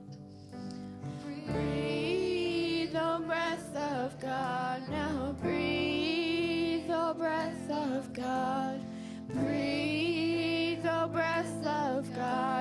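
Church worship band playing a slow song, with a singer holding long, wavering notes in phrases over steady held chords.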